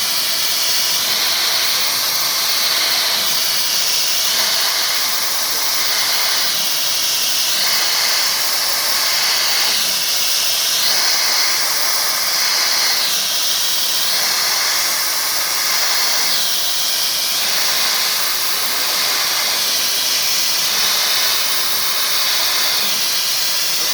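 CNC machine cutting aluminium frame profiles: a steady, loud, high hiss of the spindle and cutting that shifts in character every second or two as the tool works.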